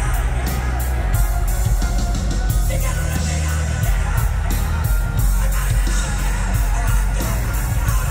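Live rock band playing loudly: drum kit, electric guitar and bass, with the singer's voice yelling over the band.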